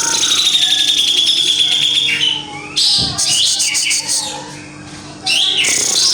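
Cucak jenggot (brown-cheeked bulbul) calling loudly in bursts of rapid, harsh chattering trills. A long buzzy trill runs for about two seconds, then two shorter, higher rattles follow, about a second apart.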